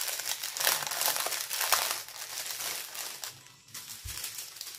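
Small plastic bags of diamond-painting drills crinkling as they are handled, with a short lull about three and a half seconds in.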